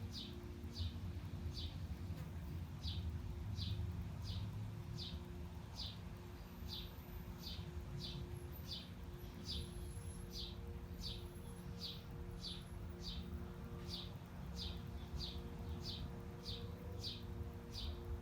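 A single bird repeating one short, falling chirp over and over, about one and a half times a second, over the low steady rumble of city traffic.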